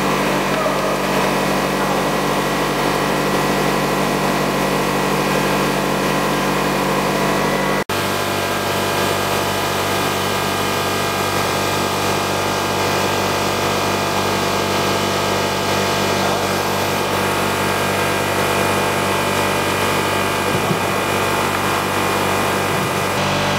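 Blown film extrusion plant running: a steady machine hum made of several steady tones. About eight seconds in, the sound drops out for an instant and resumes with a different mix of tones.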